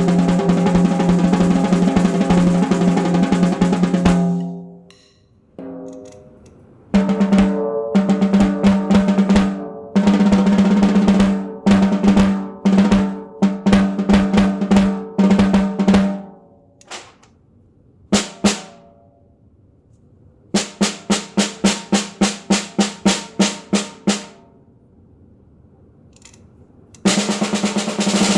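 Handmade solid-wood stave snare drum with walnut rerings being played. A sustained roll with a steady ring stops about four seconds in, followed by patterns of strokes and short rolls, an even run of single strokes at about four a second, and another roll near the end. The recording clips on the loudest playing.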